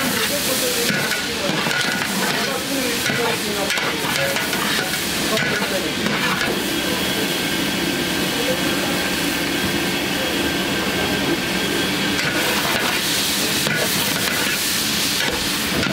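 Ground meat frying and sizzling in a large aluminium pot as a long metal spatula stirs and scrapes through it.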